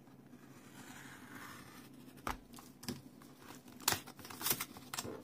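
A small metal blade slitting reinforced packing tape and the cardboard of a taped mailing envelope. It starts as a faint scratchy scraping, then turns into several sharp scratches and clicks from about two seconds in, loudest near the four-second mark.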